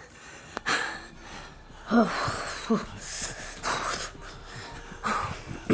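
A man breathing hard and fast, out of breath from running, with short voiced gasps about two seconds in and again just after.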